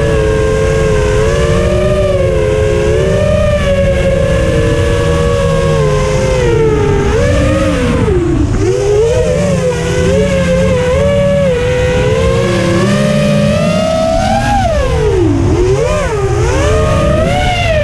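Four brushless motors of an FPV racing quadcopter (T-Motor F40 Pro II 1600kv spinning 6-inch props), heard from a camera on the craft, whining with a pitch that rises and falls with the throttle. The pitch drops sharply about eight seconds in and twice near the end, over a steady low rumble.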